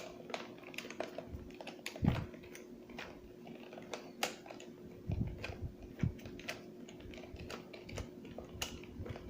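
Phillips screwdriver worked by hand to back a screw out of a plastic toy's base cover: irregular light clicks and taps, with a few low knocks from handling the plastic base.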